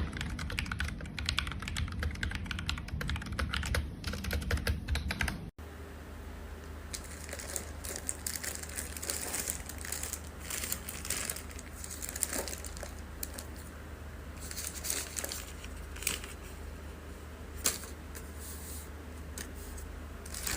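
Fast typing on a mechanical keyboard fitted with Akko V3 switches, a dense run of key clacks. About five seconds in the sound cuts abruptly to a second typing take with sparser, sharper key strikes.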